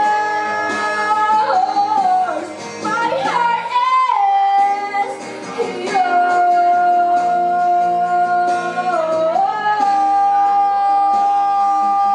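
A woman singing a ballad live into a microphone with guitar accompaniment, the melody settling into long held notes in the second half.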